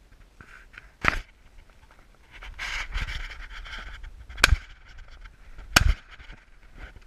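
Shotgun shots fired up at birds in the treetops: a sharp report about a second in, then two more about a second and a half apart in the second half.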